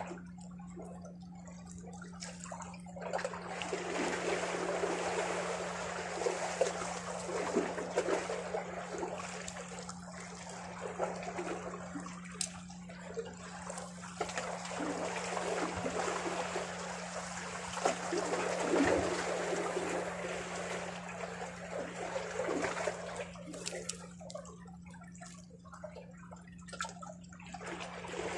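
Small sea waves washing over shoreline rocks and trickling back off them. The wash swells about three seconds in and eases off near the end.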